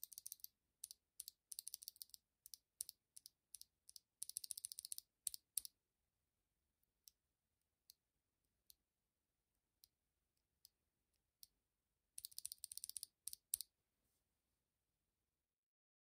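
Boba U4T tactile mechanical keyboard switches being pressed, clacking in quick bursts at the start, then single clicks about a second apart, then one more quick burst. The clicks stop about two seconds before the end.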